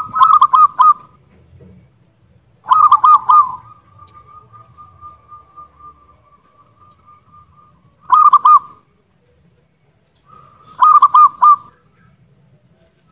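Zebra dove (perkutut) singing loudly in four bursts of rapid staccato coos, a few notes each. The second burst trails off into a long soft trill.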